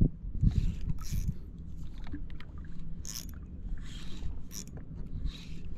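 Wind rumbling on the microphone and water lapping at a small boat's hull, with short hissing bursts about every second as a hooked fish is played on a spinning reel.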